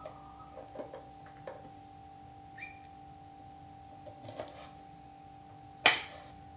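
Kitchen knife cutting long beans against a wooden cutting board: a few light scattered taps, then one sharp knock of the blade on the board near the end, over a steady electrical hum.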